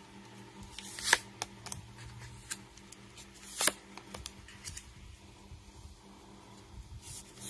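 Tarot cards being handled and laid down on a table: scattered soft taps and flicks, with two louder snaps about a second in and about three and a half seconds in.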